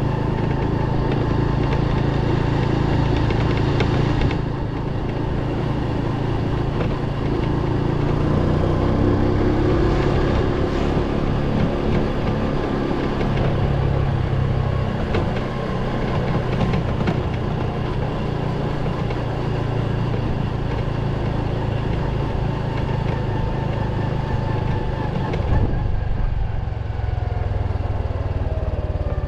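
Motorcycle engine running while riding at street speed, with wind rushing over the microphone. Near the end the wind hiss drops off and the engine note falls as the bike slows.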